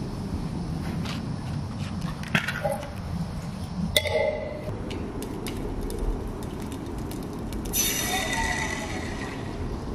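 Canister gas camping stove burning with a steady low roar. Two sharp metallic clinks ring out about two and four seconds in, and a hiss starts near the end as a tin can is set on the burner.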